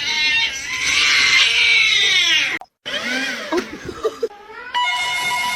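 A cat's long, harsh, high-pitched cry lasting a couple of seconds, cut off suddenly. After a short gap come several shorter rising and falling meows. Near the end a steady tone comes in.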